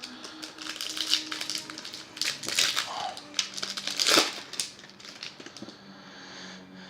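Foil trading-card pack wrapper crinkling and crackling in irregular bursts as it is handled and opened, loudest between about one and four and a half seconds in.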